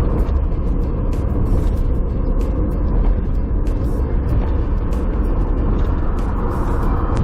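Steady low road and engine rumble of a Toyota HiAce van on the move, with faint ticks now and then.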